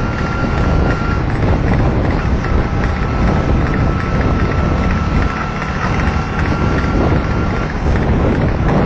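Wind buffeting the microphone over the rumble of a moving vehicle, with a thin steady high whine that drops out briefly about a second in.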